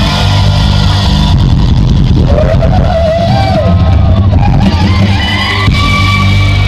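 Loud live concert music over the venue's sound system, with heavy, steady bass and a voice gliding over it in the middle.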